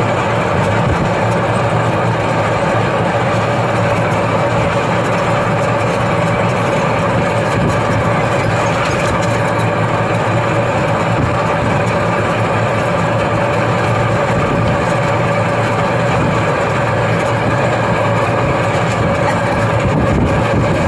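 A vehicle running steadily: a continuous mechanical drone with a fixed hum that holds the same level throughout.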